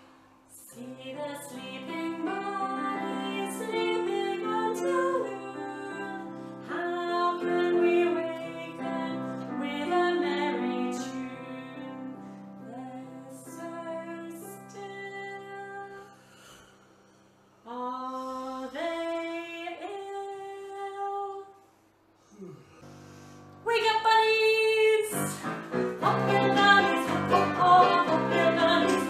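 A woman singing a children's action song to electronic keyboard accompaniment. The music breaks off briefly about two-thirds of the way through, then comes back louder and fuller.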